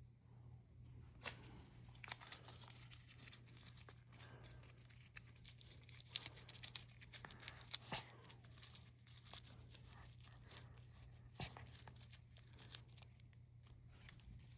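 Crinkling and crackling: many small, sharp crackles in a quick, irregular run, starting about a second in.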